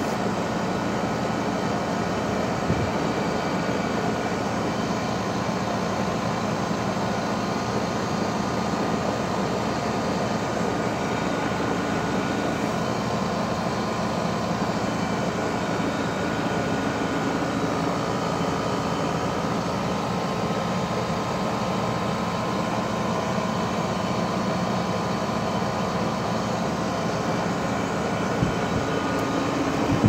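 2012 Rheem 4-ton heat pump outdoor unit running steadily in cooling mode: the condenser fan's even rush of air with a low hum underneath.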